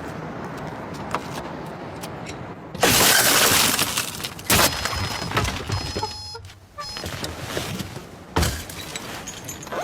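A loud smash of breaking glass about three seconds in, followed by several sharp knocks and thuds.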